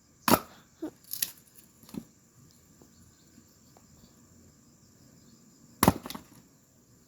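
Red hardwood firewood being struck and split: a few sharp chops and cracks, loud ones just after the start, about a second in and near the end, with smaller knocks between.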